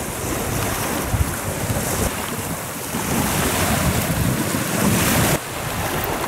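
Wind buffeting the microphone over small waves washing onto a sandy beach, a steady rushing noise; it drops abruptly a little over five seconds in, then carries on.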